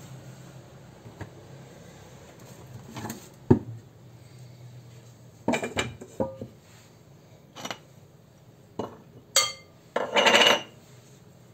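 Kitchen utensils, dishes and a cutting board being handled: scattered clinks and knocks, one sharp knock about three and a half seconds in, a quick cluster a couple of seconds later, and a longer clattering scrape near the end.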